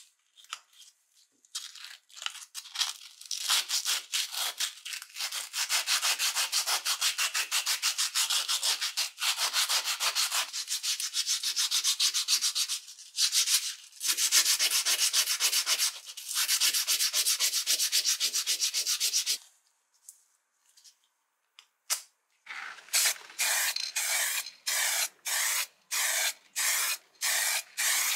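Sandpaper rubbed by hand on the metal frame of an old tobacco cutter to take off rust, in rapid back-and-forth scratchy strokes with a short break partway and a stop a few seconds before the end. Near the end comes a regular rattling about twice a second, as an aerosol spray paint can is shaken.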